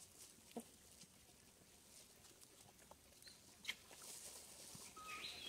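Near silence with faint scattered clicks and rustles. Near the end a short high-pitched call begins, stepping up in pitch.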